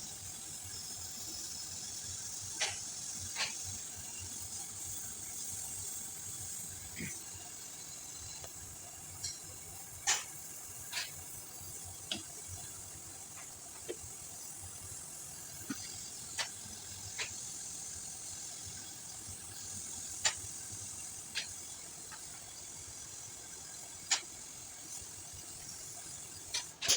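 Brazing torch flame hissing steadily while a copper refrigerant joint on an AC compressor is heated and brazed. Short sharp clicks sound every second or two over the hiss.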